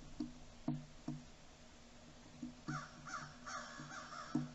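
Crows cawing: a quick run of about four caws starting about two and a half seconds in, with a few soft knocks scattered before and after.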